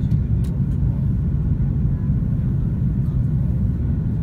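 Steady low rumble of an Airbus A330-300 cabin heard from a window seat over the wing: engine and airflow noise, with the flaps extended for the descent.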